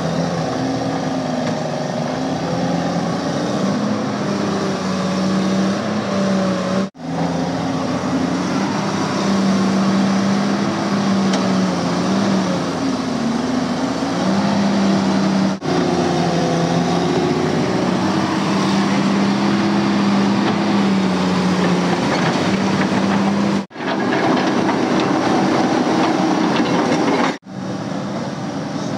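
JCB tracked excavator's diesel engine running under load, its pitch rising and falling as the hydraulics work the boom and bucket clearing landslide debris. The sound cuts out sharply for a moment four times.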